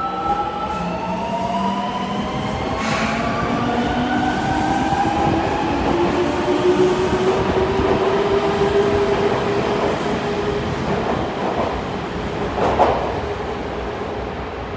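Fukuoka City Subway 2000-series train pulling out of an underground station, its traction motors whining in several tones that climb steadily in pitch as it gathers speed, over the rumble of wheels on rail. Near the end comes one sharp clack, the loudest moment.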